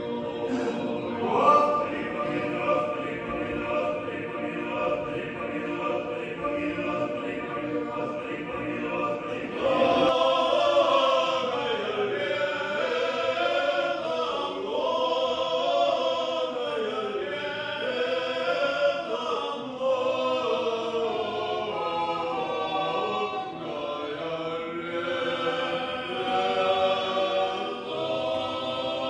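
Men's monastic choir singing Orthodox church chant unaccompanied. For about the first ten seconds the voices hold a sustained chord, then the singing turns louder, with moving melodic phrases.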